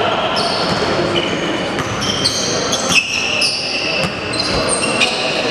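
Basketball game sounds: sneakers squeaking repeatedly on a hardwood court, a basketball bouncing a few times, and players' voices calling.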